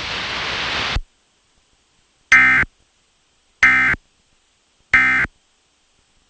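Weather-radio static hiss that cuts off about a second in, then three short, identical, buzzy data bursts about 1.3 seconds apart. These are the EAS SAME digital tones, and their brevity marks them as the end-of-message (NNNN) code that closes the severe thunderstorm warning.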